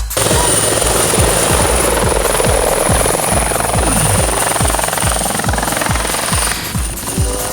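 Bell 412 helicopter running: dense rushing rotor and engine noise with a steady high turbine whine. An electronic music beat thumps evenly underneath.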